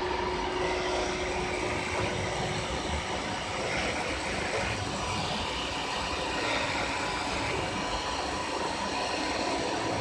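PTP CNC router running, a steady even machine noise.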